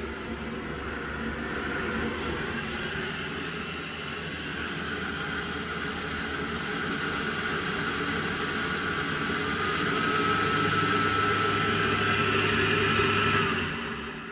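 Navien 240 tankless gas water heater firing up and running, its combustion fan whirring steadily over a low hum. A thin whine comes in about ten seconds in. The sound drops away sharply near the end.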